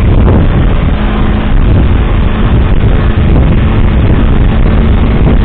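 Vehicle driving, picked up by a dashcam microphone: a loud, steady low rumble of engine and road noise with a faint constant hum.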